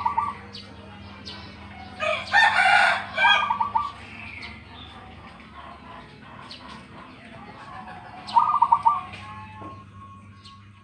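Zebra dove (perkutut) cooing: short, rapid pulsed phrases at the start, about three and a half seconds in and again near nine seconds. About two seconds in, a louder, longer rooster crow.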